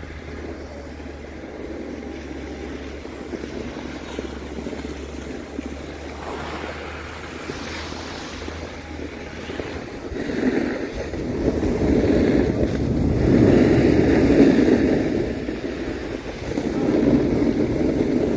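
Skis sliding and scraping over groomed snow, with wind rushing on the microphone. The scraping grows louder about halfway through and comes in surges.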